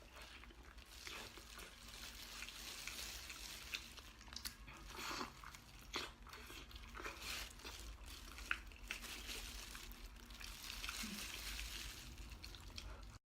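Someone eating braised pig's trotter close to the microphone, with soft biting, chewing and occasional crinkling sounds.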